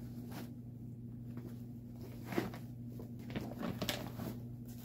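Soft handling noises: a few light knocks and rustles as craft bags and a paper pattern are sorted through, over a steady low hum.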